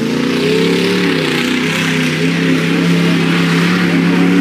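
Mud-bogging vehicle's engine revving up right at the start, then held at steady high revs with a slight waver in pitch.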